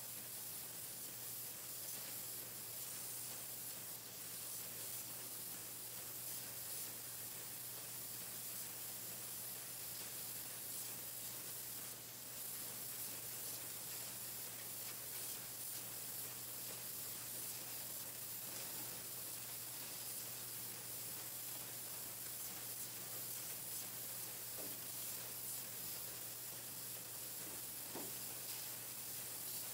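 Pencil painting machine running: a steady hiss over a low, even hum.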